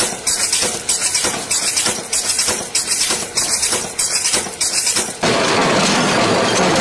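Automatic stamping press punching out small domed metal cups: a rhythmic metallic clank about three times a second, with parts clinking as they drop. About five seconds in it cuts abruptly to a steady, dense machine clatter.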